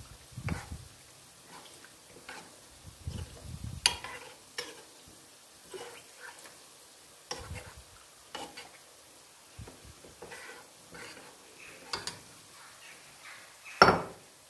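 Cooking sounds: scattered knocks, scrapes and clinks of utensils against cookware over a faint hiss, with one loud clank near the end.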